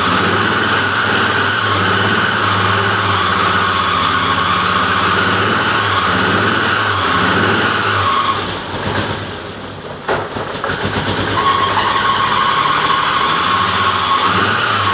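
Alfa Romeo 75 3.0 America's 3.0-litre V6 running unevenly after five years standing, with a steady high squeal from a slipping belt. A little past halfway it falters and sags for about two seconds, then catches again, and the belt squeal returns.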